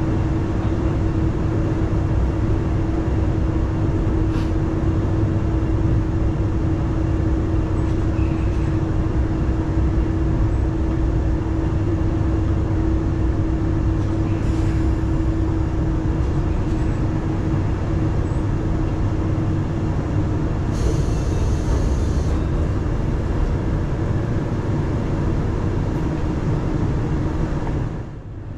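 Diesel railcar running along the line, heard on board: a steady low rumble with a held drone, and a brief hiss about 21 seconds in. The drone stops shortly before the end.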